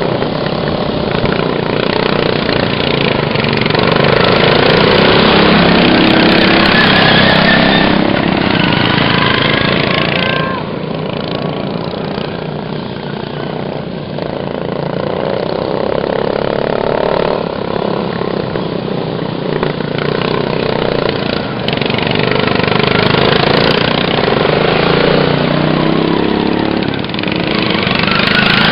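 Racing lawn mower engines running, growing louder and fading as the mowers pass. The loudest stretch is about five seconds in, with another loud stretch near the end.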